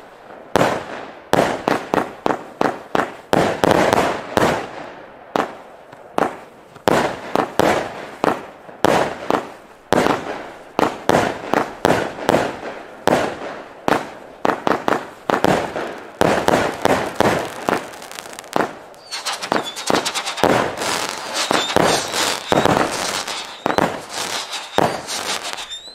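Black Ice consumer firework battery, a 47-shot cake, firing: a rapid run of bangs as shots launch and burst overhead, turning into a denser crackle about three-quarters of the way through.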